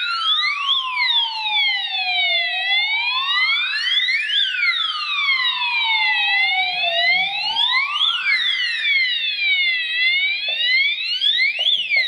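Addressable fire alarm sounder strobes wailing in alarm after a smoke detector test: two siren tones sweep slowly up and down out of step with each other, each rise and fall taking about four seconds.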